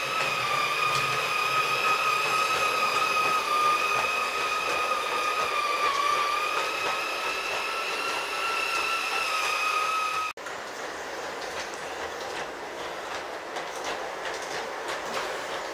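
LGB G-scale model trains running on brass track: a locomotive's electric motor gives a steady high whine over the rolling of its wheels. About ten seconds in, a sudden cut brings a different train with no whine, only quieter rattling and rapid clicking of wheels over the rail joints.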